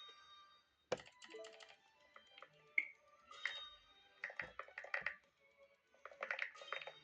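Keyboard keys clacking in quick clusters, over background music.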